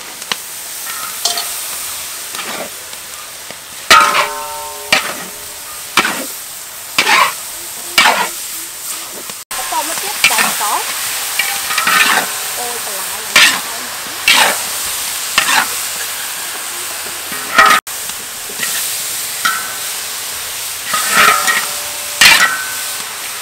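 Metal spatula scraping and knocking against a large metal wok as shrimp, greens and bean sprouts are stir-fried, with repeated strokes over a steady sizzle.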